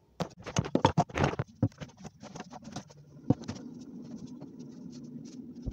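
A quick run of knocks and rattles as a phone is handled and set down, with one sharp knock a little after the middle. Then a steady low hum with faint scratching of a pen on a notebook.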